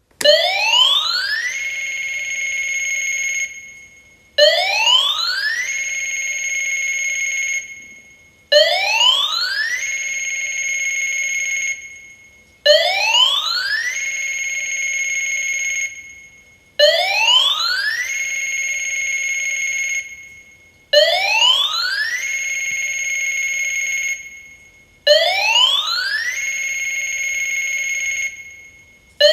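Sammy Seven Flash alarm clock ringing with its electronic alarm sound. Each round starts sharply, sweeps upward in pitch for about a second like a siren, holds the high tone for about two seconds and then fades. It repeats about every four seconds, seven times.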